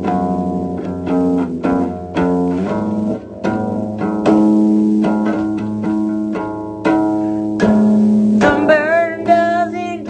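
Song music, an instrumental passage: plucked guitar notes over bass, with a wavering high melody line coming in about eight and a half seconds in.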